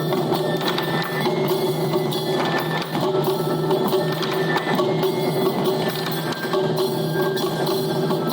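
Japanese taiko drums played in a dense, rapid rhythm, with steady sustained tones underneath.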